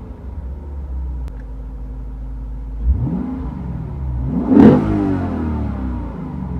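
2015 Lexus RC F's 5.0-litre V8 idling, then revved twice: a short rise about three seconds in and a bigger, louder one about a second and a half later that falls back to idle. No rattle or buzz is heard above 2500 rpm now that its fuel pumps and ECM software have been replaced and updated.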